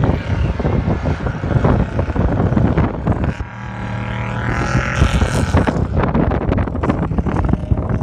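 Engine of a side-by-side off-road vehicle running hard across sand dunes, heard from inside its open cab, with wind buffeting the microphone. About three and a half seconds in, the engine briefly eases off, then revs up, its pitch rising.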